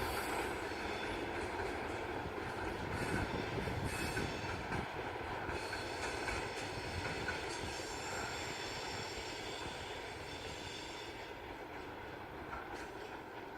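Freight train of ammonia tank cars rolling along the rails with some wheel squeal, the sound slowly fading as the train moves away.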